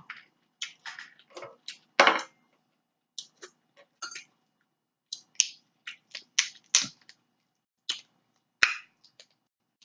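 Close-miked mouth smacking and chewing while eating snow crab and potatoes: an irregular string of short, sharp wet clicks and smacks, the loudest about two seconds in.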